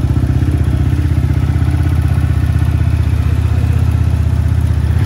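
Cross X CX250R dirt bike engine idling steadily, with an even, rapid pulse and no revving.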